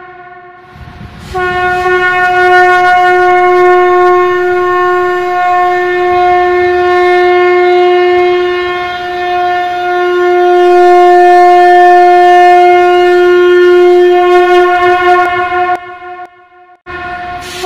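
A conch shell (shankh) is blown in one long, steady blast of about fourteen seconds, held on a single pitch. After a brief pause, the next blast begins near the end.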